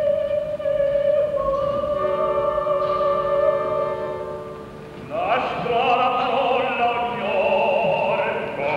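Opera singing with orchestra: a mezzo-soprano holds a long note that fades out about four seconds in. Just after five seconds, many voices come in together.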